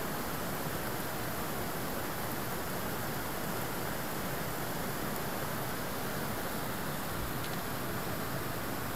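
Steady, even rush of flowing water, unchanging throughout.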